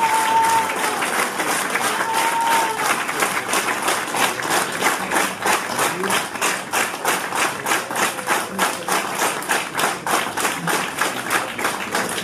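Audience applauding; within a few seconds the clapping falls into a steady rhythm in unison, about three to four claps a second.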